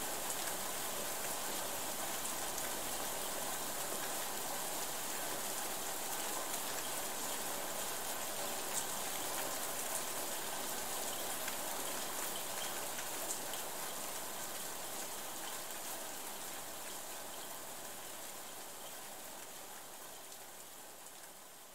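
Steady rain with scattered drop ticks, fading out slowly over the last several seconds.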